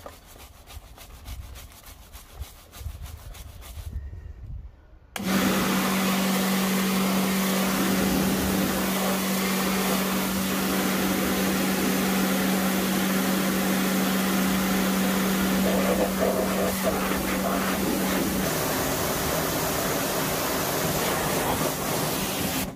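A stiff brush scrubbing, faint and fast. After a cut about five seconds in, an AVA Evolution P70 pressure washer runs with a steady hiss of spray and a low, steady hum. The hum stops about three-quarters of the way through while the spray noise goes on.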